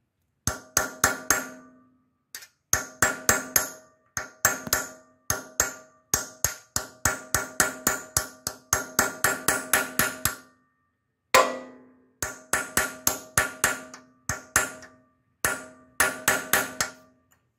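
Hammer striking a steel punch held against the aluminium cylinder head of a Briggs and Stratton engine, in quick runs of several ringing taps. The punch is staking the metal around a loose valve guide to lock it tight in the head.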